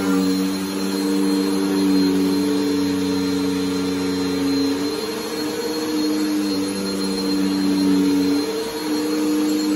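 Bagless upright vacuum cleaner running on carpet: a steady motor hum whose pitch sags briefly about five seconds in and again near the end as it is pushed back and forth.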